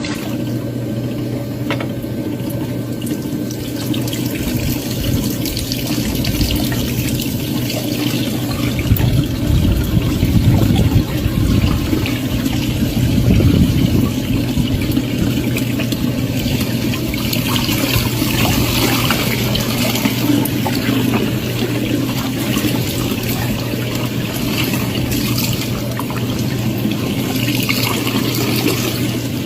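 Wringer washing machine running: a steady motor hum with water churning and sloshing in the tub, a little louder partway through.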